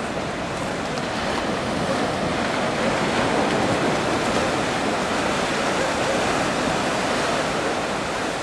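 Ocean surf breaking and washing up the beach: a steady rush that swells a little in the middle and eases near the end.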